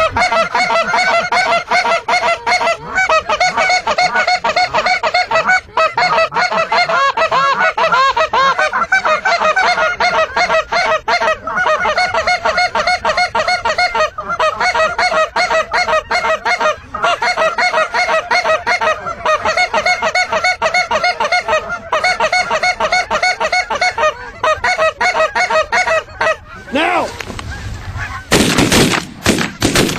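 A large flock of geese honking without pause, many calls overlapping. Near the end comes a burst of shotgun blasts.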